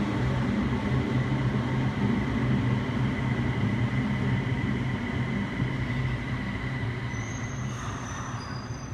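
Busan Metro Line 4 4000-series rubber-tyred automated guideway train running into the station behind platform screen doors and slowing to a stop: a steady low hum with a thin high whine, gradually growing quieter. Faint high squeals set in near the end.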